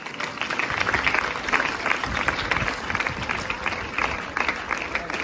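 Audience applauding, a dense steady clatter of many hands clapping that breaks out all at once.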